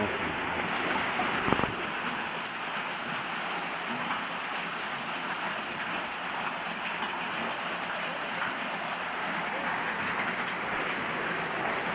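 Steady rush of water pouring onto and splashing off a water mill's wooden wheel, with a single knock about one and a half seconds in.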